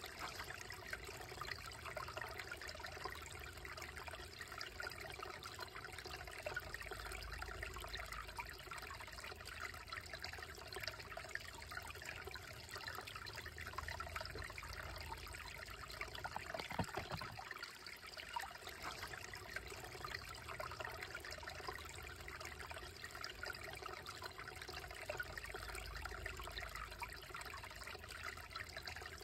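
Shallow, slow-moving creek trickling and babbling over rocks in a steady, even stream of water noise, with one brief knock a little past halfway.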